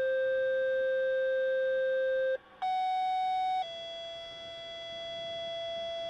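Sequential fire-pager alert tones from a dispatch radio, setting off the firefighters' pagers for a test. A long steady low tone ends about two seconds in. After a brief break, a higher tone sounds for about a second, then drops slightly to another steady tone that is still held at the end.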